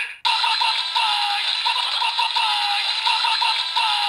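A DX Revice Driver toy with the Rolling Vistamp plays its finisher sound effect through its small speaker: a looping electronic jingle whose short phrase repeats over and over, with a recorded voice calling 'V-V-V-Vice!' near the end.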